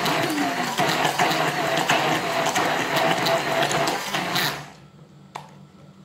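Electric blender running, blending soft chopped fruit with yogurt and sugar, then switched off about four and a half seconds in; a light click follows.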